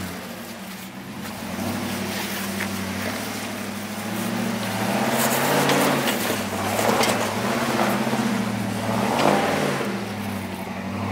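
Ram pickup truck's engine revving up and down under load as it crawls up a steep rocky bank, with rock and dirt crunching under the tyres.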